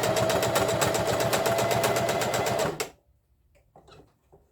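Electric sewing machine stitching fabric at a rapid, even pace, its motor whining steadily, then stopping suddenly just under three seconds in, followed by faint small clicks and rustles of handling.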